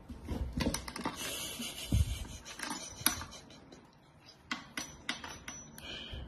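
A large dog pawing and splashing in its plastic water bowl on a wooden floor: irregular knocks and clatters of the bowl, with water splashing.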